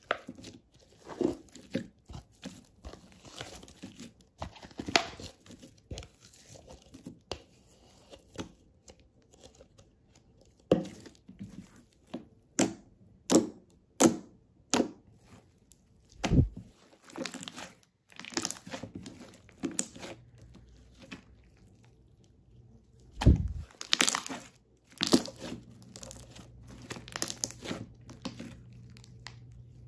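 Hands kneading, folding and stretching glossy brown slime. It gives off irregular sticky crackles and sharp clicking pops as air is squeezed out. Two deeper, duller pops come about halfway through and again about three-quarters of the way through.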